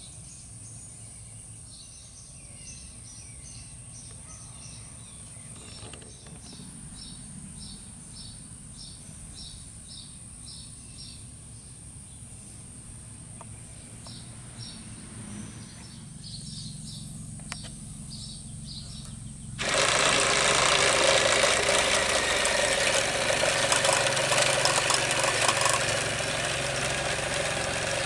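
Faint bird chirping over a steady high whine. About two-thirds of the way in, a LEGO Power Functions XL motor starts up suddenly, driving the combine harvester model's chain, reel and conveyor, and runs loudly and steadily with a mechanical rattle. It gets slightly quieter near the end.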